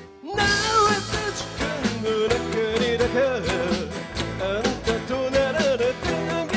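Live band song with a male lead vocal over two strummed acoustic guitars, bass and drums at a steady rock beat. The music drops out for a split second at the start, then comes straight back in.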